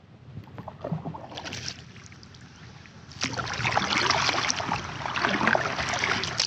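Double-bladed kayak paddle strokes: the blades dipping into and pulling through the water, with splashing and water dripping off the raised blade. Quieter for the first three seconds, then louder and busier.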